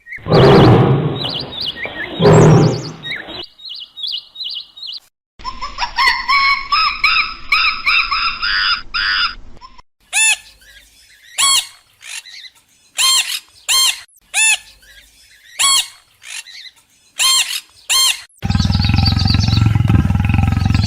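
A series of different animal calls, one short clip after another. Two loud calls open it, then bird chirps: a patch of overlapping pitched calls, and a run of separate short chirps about once or twice a second. A different sound with a deep, steady body starts near the end.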